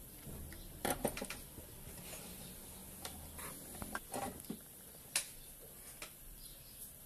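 Scattered light clicks and taps from small objects being handled on a workbench, a quick cluster about a second in, a few more around four seconds and a sharp single tap just after five seconds.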